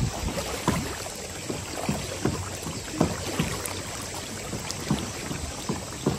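Water rushing and splashing past a Hobie iTrek 9 inflatable kayak driven by its pedal-powered Mirage fin drive, under way at speed. Short knocks and slaps come irregularly, a few every second, over a steady wash.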